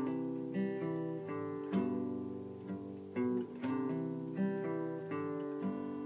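Outro music: an acoustic guitar playing a gentle tune of picked notes and strummed chords.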